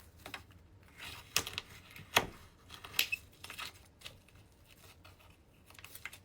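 Short clicks and scrapes of hands working a pearl oyster open to take out its pearl, a few in the first half and quieter near the end.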